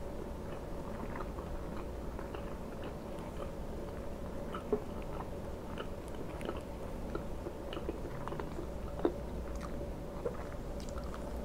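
Close-miked chewing and mouth sounds while a fork cuts through a pancake and taps against the tray: scattered soft clicks, a few of them sharper and louder, about 5 and 9 seconds in. A steady low hum runs underneath.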